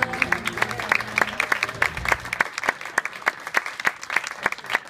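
A small audience applauding, with individual claps standing out. A low steady sound runs under the clapping and stops about two and a half seconds in.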